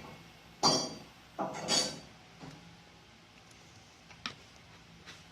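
Kitchenware being handled: two sharp knocks with short ringing clinks about a second apart near the start, then a faint click a couple of seconds later.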